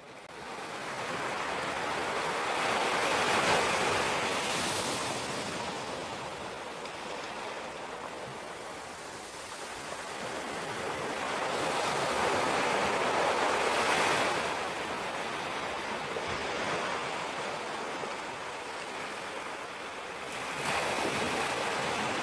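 Dense rushing noise like surf breaking, swelling and fading slowly in about three broad surges, then cutting off suddenly.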